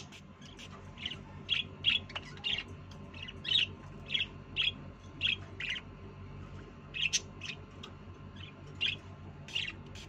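Budgerigars chirping: many short, sharp chirps in quick, irregular succession, with a brief pause about six seconds in, over a faint low steady hum.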